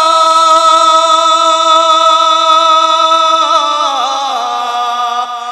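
A man singing a naat unaccompanied, holding one long steady note for about three seconds before it falls away in a wavering ornament near the end.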